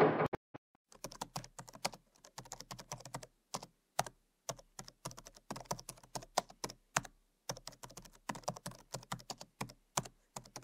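Keyboard typing sound effect: quick, irregular key clicks in runs with short pauses.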